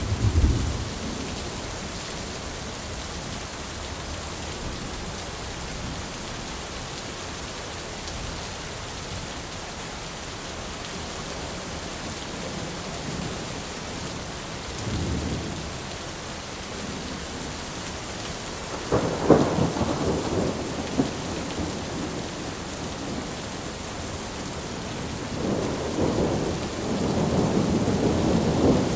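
Thunderstorm: steady rain with rolls of thunder, a short low rumble at the start, a lighter one about halfway, then a sharper clap and rumble about two-thirds in and a longer rolling rumble near the end.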